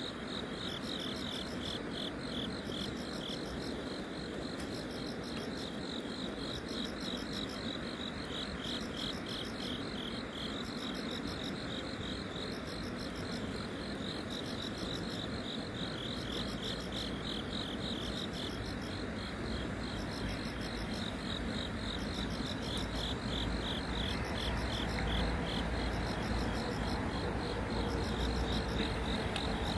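Insects chirping steadily in rapid, regular pulses, with a low rumble building up in the second half.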